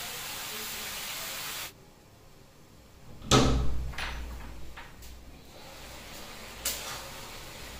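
Vegetables sizzling as they fry in a steel wok, cutting off abruptly a little under two seconds in. Then a loud metal clank, a few lighter knocks and a sharp clink near the end as the wok's steel lid is handled.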